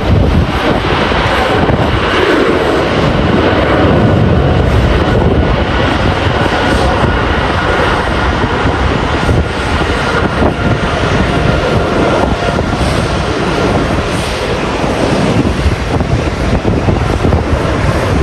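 Jet engine noise of a departing Boeing 777-300ER, a steady loud rumble and roar, mixed with heavy wind buffeting the microphone.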